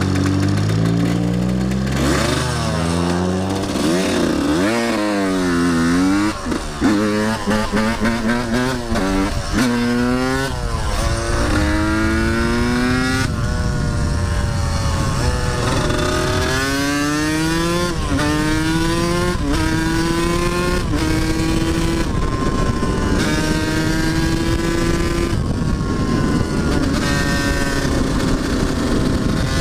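Dirt bike engine running steadily at first, then revved up and down hard about two seconds in as it pulls away. Later it climbs through the gears, rising in pitch in each gear and dropping at every shift, with wind rushing over the microphone.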